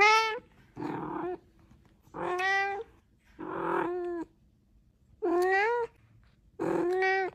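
Kitten meowing six times in a row, each meow short and rising then falling in pitch, with brief pauses between.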